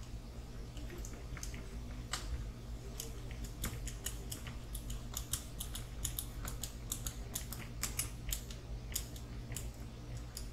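Irregular sharp clicks and taps of small plastic and metal RC truck kit parts and tools being handled during hand assembly. They come thick and fast from about three seconds in, over a steady low hum.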